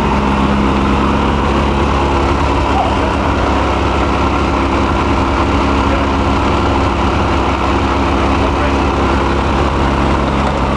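Ski-Doo Mach Z snowmobile's two-stroke engine idling steadily, a constant low hum with no change in speed.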